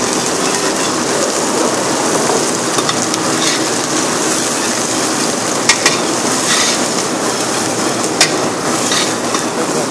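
Chopped onion, garlic, chilli and herbs sizzling steadily in hot oil in a large aluminium pot as they are stirred with a metal ladle. A few sharp clicks of the ladle against the pot come in the second half.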